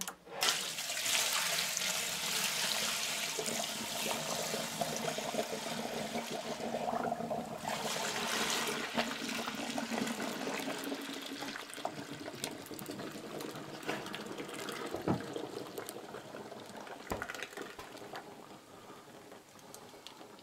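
Fermented wheat-flour mash, thick with sediment, pouring in a continuous stream from a plastic barrel into a cloth brewing bag in a stainless still pot: steady splashing and gushing that is strongest for the first eight or nine seconds, then gradually eases as the barrel empties. A couple of faint knocks come late on.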